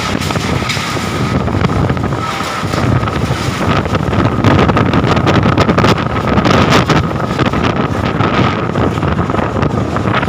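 Strong gusty wind buffeting the microphone, a loud rumbling rush that swells and eases from gust to gust, with a faint steady tone running beneath it.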